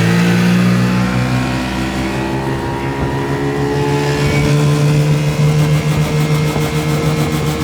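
1984 Sea King 15 hp two-stroke outboard motor running at full throttle, holding a steady high pitch that creeps slightly higher as the boat gathers speed.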